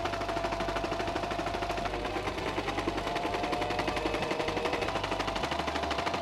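Singer Simple electric sewing machine running steadily, its needle stitching through sailcloth in a rapid, even rhythm over a steady motor whine.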